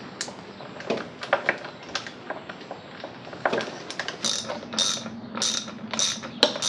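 Hand tools being worked with a run of mechanical clicks and ratcheting: scattered sharp clicks first, then about five rasping strokes roughly half a second apart in the second half.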